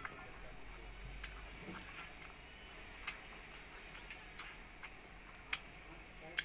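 Close-miked chewing of rice and fried pork: about ten sharp, wet mouth clicks and lip smacks at irregular intervals.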